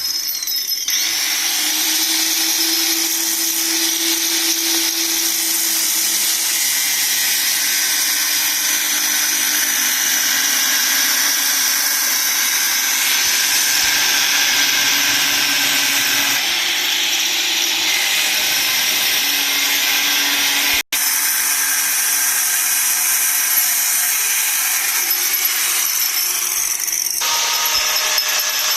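A handheld electric power tool running continuously under load: a harsh high hiss over a low motor hum whose pitch shifts now and then. It cuts out for an instant partway through.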